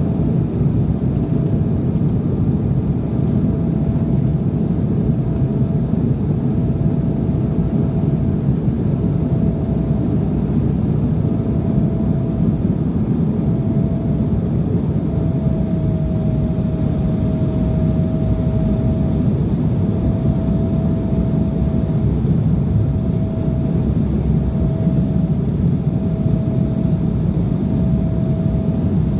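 Cabin noise of an Embraer E175 climbing after takeoff, heard from a window seat: the steady, deep rush of its GE CF34-8E turbofan engines and the airflow. A thin tone rides above it, fading in and out every second or so.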